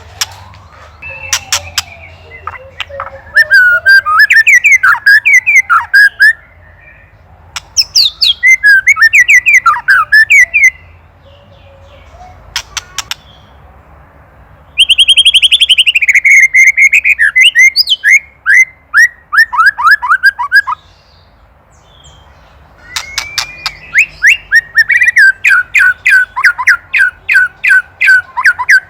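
White-rumped shama singing in several loud bursts of whistled, gliding phrases mixed with rapid dry clicking rattles. The rattles are the ketrek call a shama gives when agitated, as at a predator.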